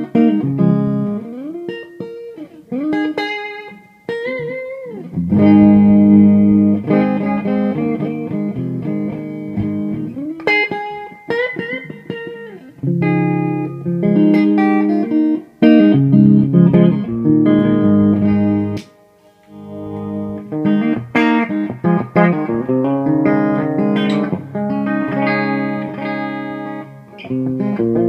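Electric guitar played through the clean channel of a Mesa/Boogie DC-5 amplifier with 6L6 power tubes: chords and single notes with bends and slides, a chimey clean tone.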